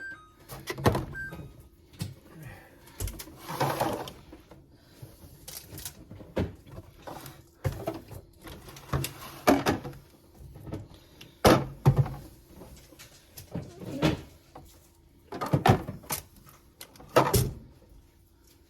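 Food containers and plastic refrigerator organizer bins knocking and clattering as they are handled and set down, in irregular bumps, with a brief rustle about four seconds in.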